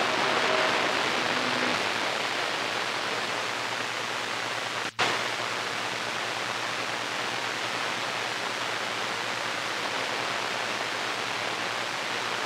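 CB radio receiver hissing with band noise on an open channel 28 (27.285 MHz) while no station is transmitting. Faint tones fade out in the first couple of seconds, and the hiss cuts out for an instant about five seconds in.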